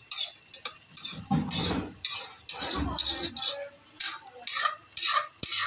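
Metal ladle stirring and scraping in a metal pan of simmering coconut-milk stew, a quick run of short scrapes about two a second.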